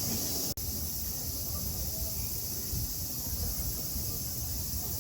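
Outdoor ambience: a steady high-pitched insect drone over a low rumble, with a brief dropout about half a second in.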